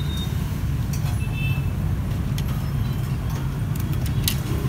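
Steady low rumble of street traffic, with a few light clicks and clinks scattered through it.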